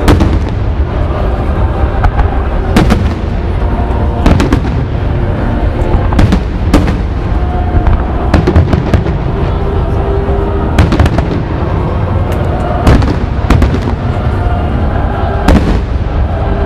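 Aerial fireworks display: sharp bangs and crackling bursts every second or two, some in quick clusters, over a continuous low rumble of booms.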